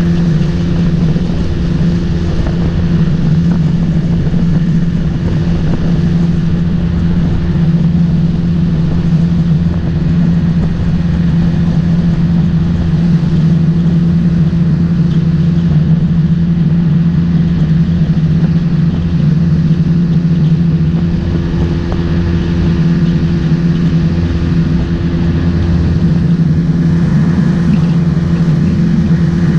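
Motorboat engine running steadily at a constant pitch, holding one speed.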